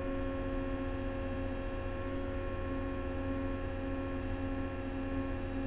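Cat small wheel loader's diesel engine held at high idle while the hydraulics lift the loaded bucket, heard inside the cab: a steady, even hum with several steady tones layered over it.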